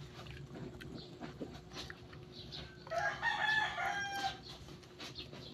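A rooster crowing once, about three seconds in, lasting over a second.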